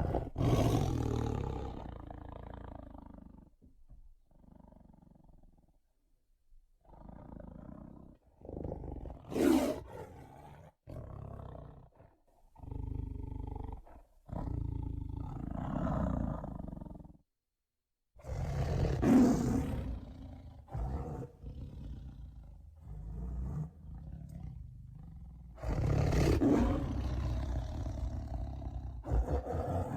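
Tiger growling and roaring in a string of separate calls, some short and some a few seconds long, with brief pauses between them. The loudest comes about two-thirds through.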